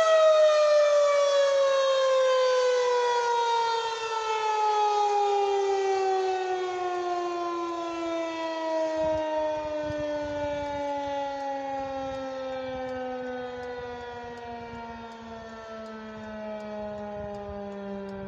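Civil defense tornado warning siren winding down at the end of a test sounding: its wail slides steadily lower in pitch and fades.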